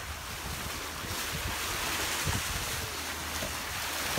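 Sea water rushing and splashing past the hulls of a Lagoon 52F sailing catamaran under way at about nine knots, with wind buffeting the microphone in brief low thumps. The rush grows louder about a second in.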